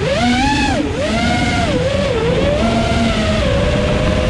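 FPV quadcopter's brushless motors and propellers whining, heard from the onboard camera, the pitch swinging up and down with the throttle in the first two seconds, then holding steadier and settling lower near the end. A rush of wind on the microphone runs underneath.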